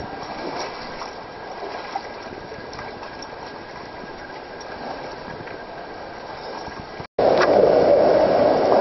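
Mountain stream rushing through a narrow rock gorge, a steady sound of flowing water. About seven seconds in it breaks off for a split second and comes back louder.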